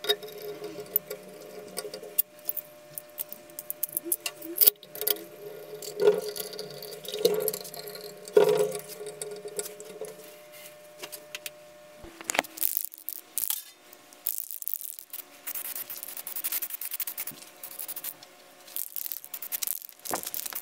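A screwdriver and small metal parts clicking, scraping and knocking on the cast-metal terminal box of a three-phase electric motor as its terminal screws are worked and its cover is fitted and screwed down. The sounds are irregular, with the sharpest knocks in the first half.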